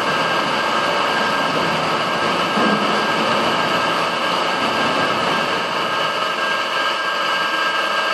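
Steady noise of a running laboratory flume: the hum of its recirculating pump and the rush of water flowing along the channel, with a thin steady high tone.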